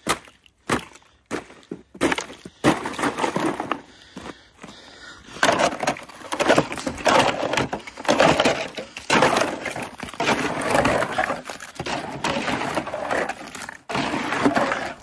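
Ice in a black rubber livestock water tub being broken up and scooped out, with sharp cracks and knocks in the first few seconds, then dense crunching and clattering of ice chunks from about five seconds in.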